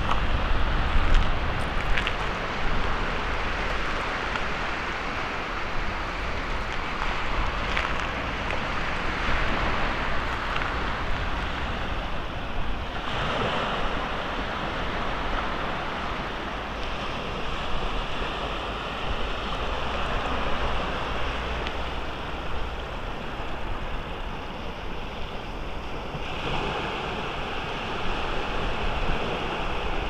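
Small Black Sea waves breaking and washing up a sandy shore in a steady hiss, with wind rumbling on the microphone.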